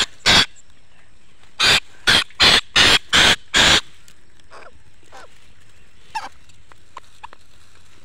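A captured cuckoo, a female Asian koel, giving harsh screeching distress calls while held in the hand. There are two calls at the start, then six more in quick succession about every 0.4 s, followed by a few faint clicks and rustles.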